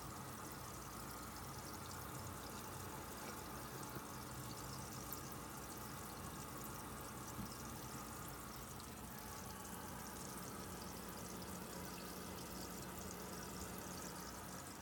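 Steady flow of water running and splashing into aquarium rearing tubs, with a faint low hum underneath.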